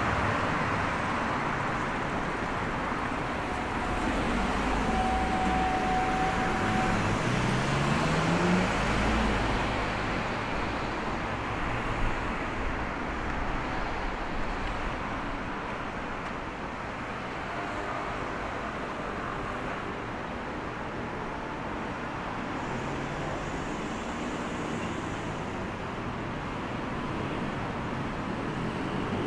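Street traffic: steady road noise of cars passing, with one vehicle's engine pitch rising as it accelerates about eight seconds in and again more faintly later.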